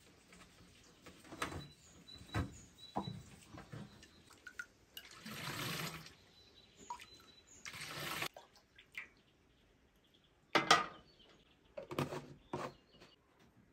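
A metal ladle scooping milk from an aluminium pot and pouring it into a plastic jug: two longer pours about five and eight seconds in, amid knocks and clinks of the ladle against the pot and jug.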